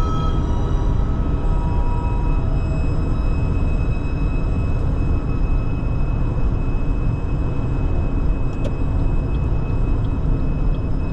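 Steady road and engine rumble of a car driving, with faint held notes of music above it.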